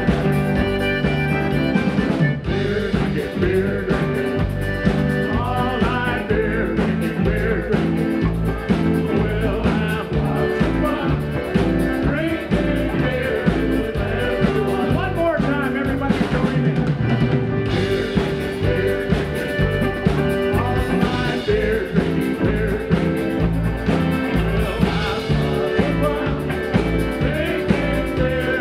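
Live polka band playing: button-laden accordion, electric stage keyboard, electric guitar and drum kit keeping a steady oom-pah beat.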